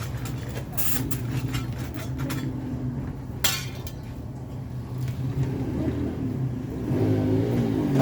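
An engine running steadily, its pitch wavering near the end, with several clicks and a short scrape in the first few seconds.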